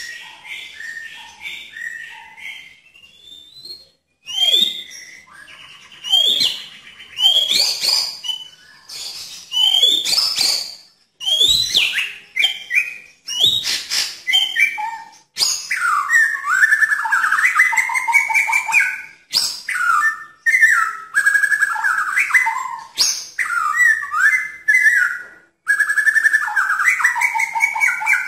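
White-rumped shama singing: a varied whistled song that opens with short repeated notes, goes on with sharp sweeping notes between brief pauses, and in the second half runs into long stretches of fast, continuous warbling.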